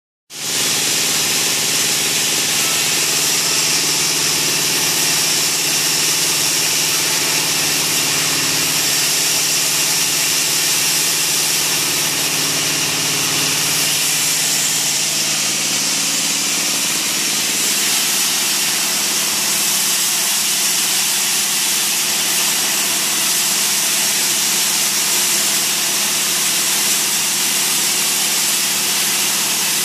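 Large sawmill band saw running steadily, with a loud constant hum and a strong high hiss.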